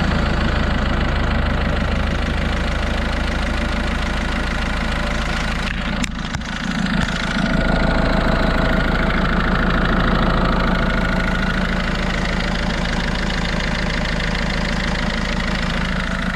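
PSA DV6 diesel engine idling steadily right after a cold restart following a fuel filter change and hand-pump priming, showing the fuel system is primed and running. A sharp click and a brief dip in level come about six seconds in.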